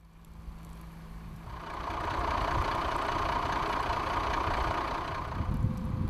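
Fire engine's engine running steadily, fading in at the start and growing louder over the first two seconds.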